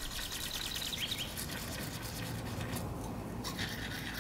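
A small bird singing faintly: a fast trill of rapid, evenly spaced high notes, then a short rising chirp about a second in, over a low steady background rumble.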